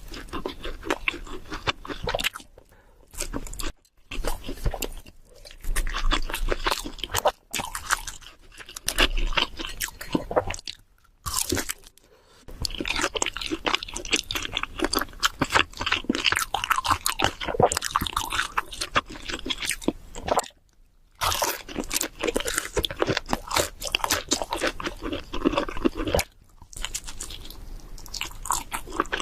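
Close-miked chewing and biting of cheese seafood pizza, with crunching, in runs broken by a few short pauses.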